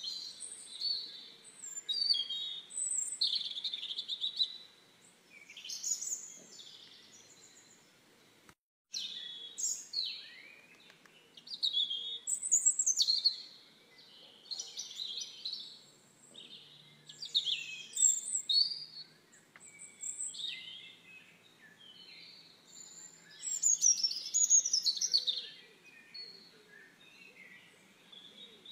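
Chicks peeping in repeated bursts of high, downward-gliding chirps. The sound cuts out completely for a moment about nine seconds in.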